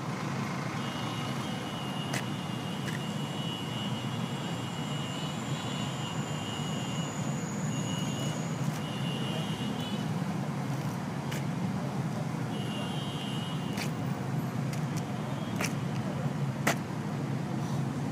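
Outdoor road traffic: a steady low rumble of vehicles, with a thin high whine that comes and goes and a few sharp ticks.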